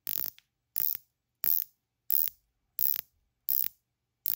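The unidirectional 120-click bezel of a Rolex Submariner 126610LV being turned by hand, ratcheting in short runs of rapid clicks. About seven runs come at an even pace, roughly one every two-thirds of a second.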